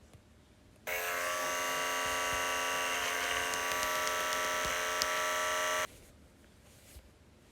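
A buzzing sound effect from a prank app, played through a phone speaker: one steady electric buzz lasting about five seconds, which starts and stops abruptly.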